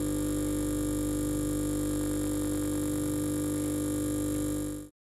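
A sustained chord of steady electronic tones, like a synthesizer pad, held unchanged, then fading out quickly near the end into complete silence.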